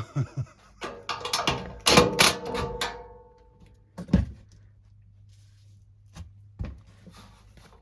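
Metal parts of the blower assembly clattering and knocking as they are handled, with a short metallic ringing during the loudest clatter, then a few single knocks.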